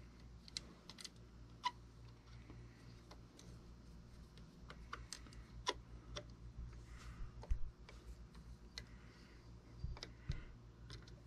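Faint, irregular small clicks and ticks of a screwdriver turning a small screw that fastens the bobbin winder's release tab inside a vintage Singer 500A sewing machine, metal tapping on metal as the screw is driven in.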